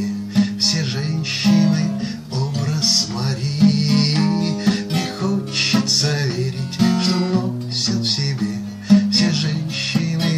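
A man sings a Russian bard song (avtorskaya pesnya) to his own strummed acoustic guitar accompaniment.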